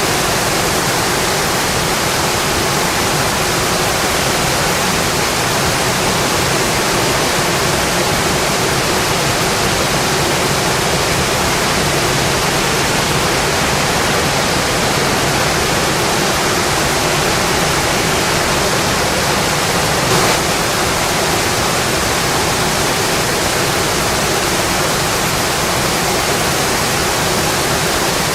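Steady heavy rainfall, an even, unbroken hiss, with a single brief tick about two-thirds of the way through.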